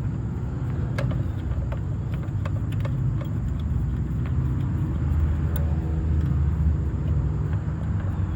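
A steady low engine rumble, like a motor vehicle running, growing slightly louder, with a few light clicks and taps over it.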